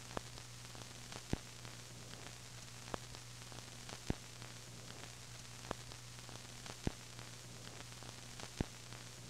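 Faint, steady hiss and low hum with a sharp click or pop about every second or so, uneven in timing: the surface noise and crackle of an old film soundtrack.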